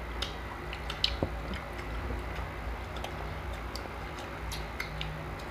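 Scattered soft clicks and taps of people eating and handling food at the table, over a low steady hum.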